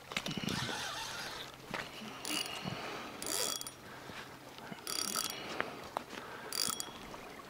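Spinning fishing reel being cranked in several short spells, its gears giving a high ratcheting whir as line is wound in.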